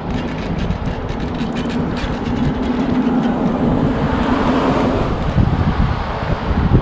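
Drag of a Daiwa LEXA 300HS-P baitcasting reel slipping as a hooked stingray pulls line off against it: a steady buzzing hum with some quick clicks in the first few seconds. The fish is too strong for the 7 kg drag. Wind noise on the microphone runs underneath.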